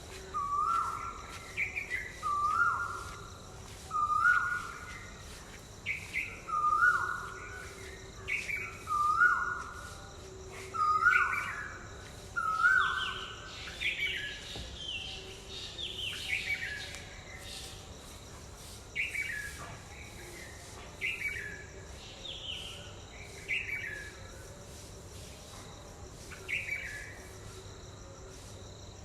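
Asian koel (koyal) calling: a short rising note repeated about once a second, giving way about halfway through to higher, falling notes that come a little more slowly toward the end.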